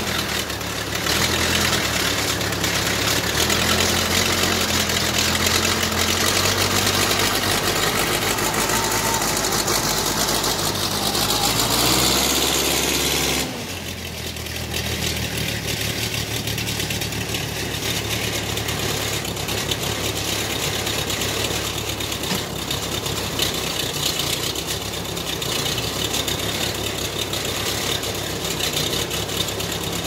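Case backhoe loader's engine running while the machine is driven back and forth on a test of its freshly resealed shuttle-shift transmission. The engine pitch shifts and climbs under load in the first half, then the sound changes abruptly, dropping slightly in level, and the engine runs more steadily.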